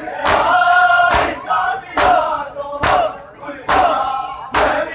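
Many men beating their bare chests with their hands in unison (matam): six loud, sharp slaps, a little faster than one a second, with a crowd of male voices chanting between the strikes.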